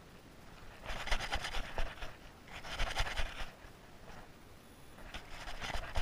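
Fishing reel being cranked in three short bursts of rasping, rattling noise with pauses between, while a hooked fish pulls on the bent rod.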